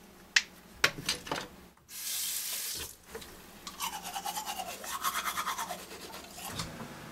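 Manual toothbrush scrubbing teeth in quick, even back-and-forth strokes, about five a second, starting about four seconds in. Before it come a few sharp clicks and a short hiss as the brush and toothpaste tube are handled.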